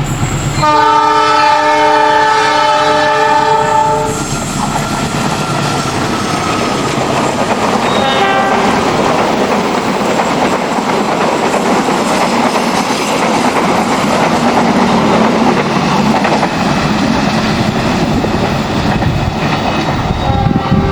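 Indonesian railway locomotive horn sounding a long multi-tone blast for about three seconds, the long-horn warning signal (semboyan 35) required at this spot. A brief second blast follows about eight seconds in. The train's wheels and cars then run past with a steady rumble and clatter, and the horn starts again right at the end.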